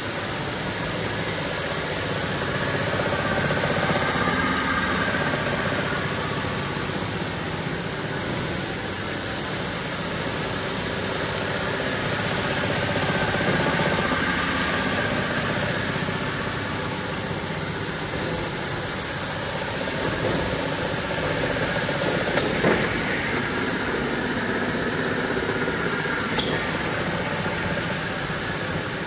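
A motor-driven rug-cleaning machine running steadily, with a couple of short clicks late on.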